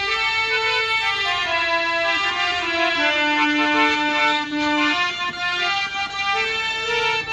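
Electronic harmonium with a fitted Casio keyboard playing a melody of long held notes.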